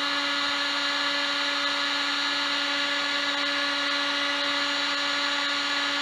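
Electric heat gun running steadily: an even motor hum over the rush of blown air, as it shrinks heat-shrink tubing onto a soldered crimp connector.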